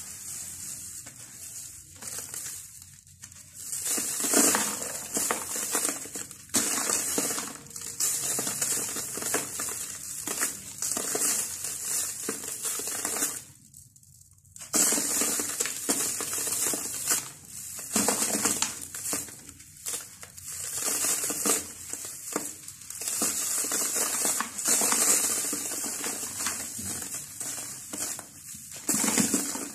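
Dry sand-cement blocks being crushed and crumbled by hand, giving a dense, soft crackling crunch as they break apart and the grains spill into a plastic tub. The crumbling comes in uneven spells, with a brief pause about halfway through.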